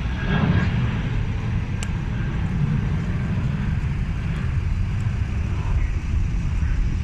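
Steady low rumble of an airliner's engines and cabin noise, with a faint hiss on top.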